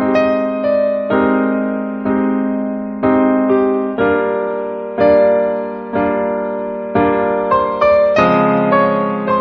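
Slow, gentle piano music: notes and chords struck about once a second, each ringing and fading away.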